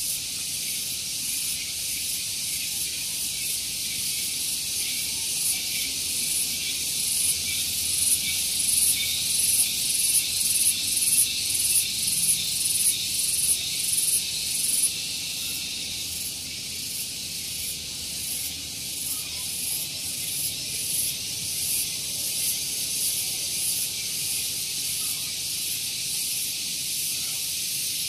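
Cicadas (tonggeret) calling shrilly from the trees: a dense high-pitched buzz that swells and fades in quick regular pulses. Midway a louder caller pulses strongest, then breaks off suddenly, and the softer chorus carries on.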